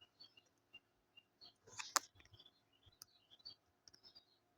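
Near silence with a few faint clicks, the sharpest about two seconds in, and scattered faint high blips.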